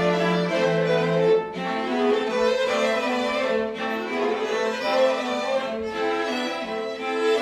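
A string quartet of two violins, viola and cello playing chamber music in sustained, held notes; the low held note drops out about one and a half seconds in, leaving the upper strings.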